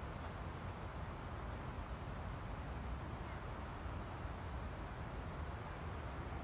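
Quiet open-air ambience: a steady low rumble on the microphone, with faint high chirps from about a second and a half to four and a half seconds in.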